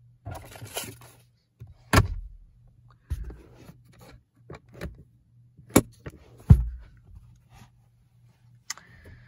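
Handling noises in a car's interior: papers rustling in the glove box, then a series of sharp clicks and knocks as trim parts such as the sun visor are moved, loudest about two seconds in and again around six seconds in. A faint steady low hum lies underneath.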